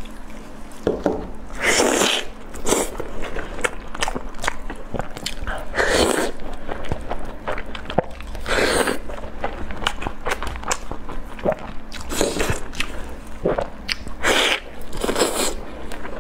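Close-miked eating of sauce-glazed ribs: wet chewing with many small clicks, and a louder bite every few seconds, six or so in all.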